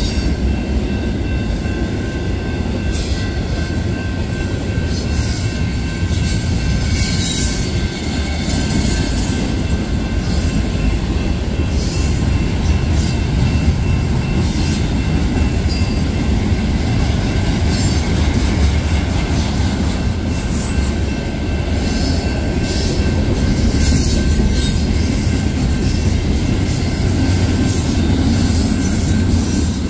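Union Pacific double-stack intermodal train's well cars rolling past close by: a steady, loud rumble of wheels on rail, with a faint high wheel squeal held throughout and irregular clatter from the cars.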